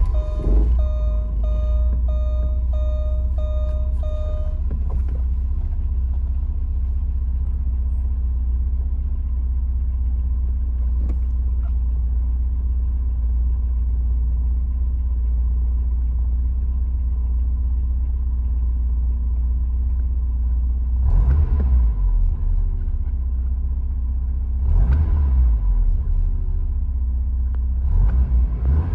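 1991 Porsche 944 S2's 3.0-litre four-cylinder engine idling steadily just after a cold start. A warning chime beeps about twice a second for the first few seconds. Near the end the throttle is blipped three times, each a short rev.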